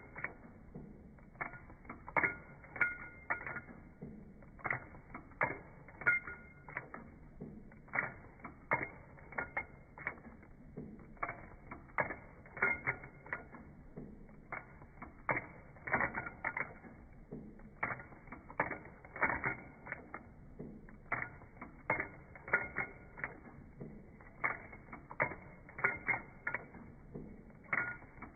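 Sewing machine mechanism clicking and clacking in motion, a run of irregularly spaced sharp clicks, about one or two a second.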